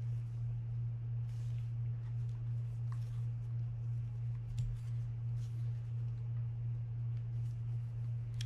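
Steady low hum, with faint rustles and light clicks of hands working an opened Penn Spinfisher 550SSG spinning reel and its handle. A sharper click comes about halfway through.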